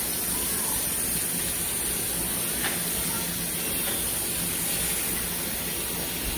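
Kitchen faucet running steadily, a raw fish fillet being rinsed under the stream.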